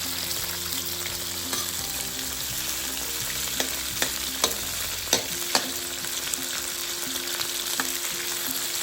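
Large prawns frying in hot oil in a wok, a steady sizzle, with a handful of sharp clinks against the wok near the middle as they are stirred and moved around.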